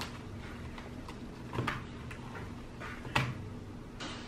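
Strawberry Jell-O Play slime being stretched and squished by hand in plastic bowls: a few soft sticky clicks and squelches, two louder ones about one and a half and three seconds in.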